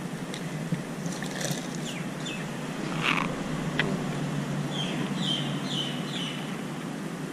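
Steady low background noise with a few clicks and scrapes as a caught red snapper is handled and hooked onto a digital hand scale; about five seconds in, four short high chirps in quick succession.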